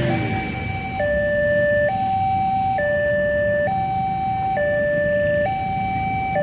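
Railway level crossing's new electronic warning siren sounding a two-tone hi-lo wail, switching between a higher and a lower tone about once a second. It is the warning that a train is approaching the crossing.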